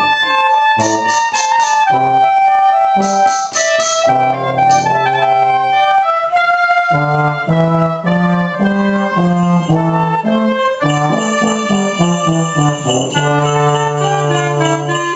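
Small ensemble playing a piece together: euphonium and oboe with keyboard-like accompaniment. Short runs of quick percussion taps, likely the claves, come twice in the first four seconds.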